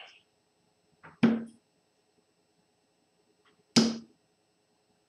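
Two darts thudding into a dartboard, about two and a half seconds apart, the first a little over a second in. Each hit is sharp and short with a brief ring.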